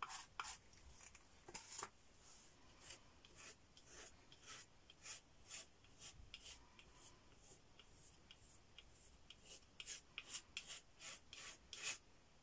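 Faint scraping and rubbing of a steel palette knife in thick acrylic paint, first picking paint up off the palette, then pushing it across the painting surface. A run of short, irregular scrapes, thickest near the start and again near the end.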